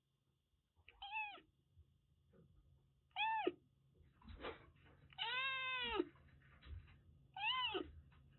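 Young Siamese-mix kitten, about six weeks old, meowing four times: short calls that rise and fall in pitch, the third one longer than the others.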